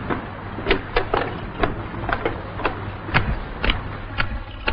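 Footsteps on wooden planks, about two sharp steps a second, over a low steady hum.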